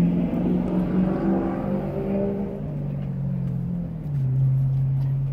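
An engine running with a steady hum whose pitch drops in steps over a few seconds.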